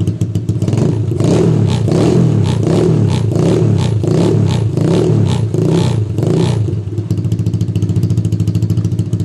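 ATV engine, exhaled through twin exhaust pipes, idling and then revved in a quick series of throttle blips, about two a second, for some six seconds, before settling back to a steady idle.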